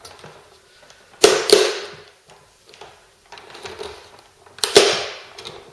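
Plastic cover of a steam mop being prised off its body with a flat screwdriver: two sharp snaps about a second in, a softer scraping stretch, then another sharp snap near the end as the clips let go.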